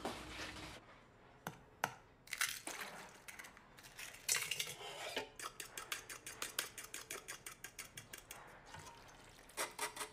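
Eggs being beaten in a stainless-steel bowl, the utensil clicking quickly and evenly against the metal at about eight or nine strokes a second. Before that come a few separate knocks, clinks and short scrapes of kitchen utensils on steel.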